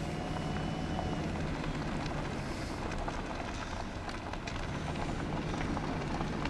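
Steady low rumble of an idling vehicle engine, with scattered light clicks over it.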